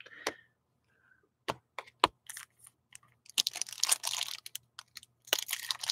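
Hockey trading cards being handled and flicked through by hand: scattered sharp clicks, with a denser stretch of crackling and rustling around the middle.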